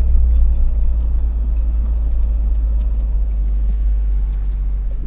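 Dacia Jogger being driven slowly over a sandy beach track: a steady low rumble of the engine and tyres, with a few faint ticks.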